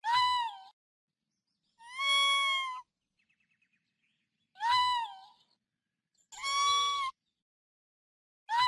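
Raccoon dog giving a series of high, whining mews, each under a second long and arching up then down in pitch, about one every two seconds: five calls, the last still sounding at the end.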